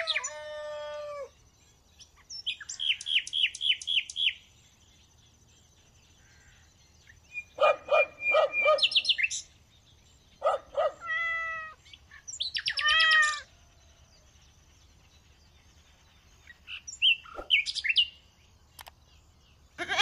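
Birds chirping in about six short bursts of rapid repeated notes, with quiet gaps between them.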